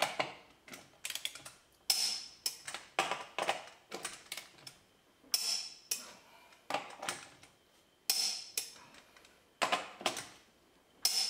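Hand ratchet clicking in short bursts as lug nuts are run down and snugged onto a wheel.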